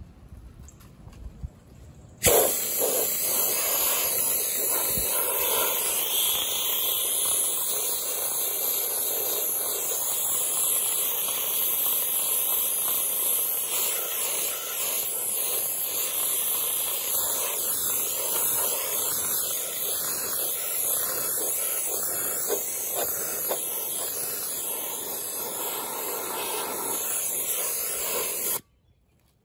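Harbor Freight media blaster spraying abrasive through its nozzle onto a painted cast iron base: a steady hiss of air and grit that starts about two seconds in and cuts off abruptly near the end.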